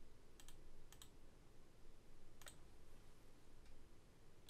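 Faint computer mouse clicks over quiet room tone: a single click, a double click, then two more spaced single clicks.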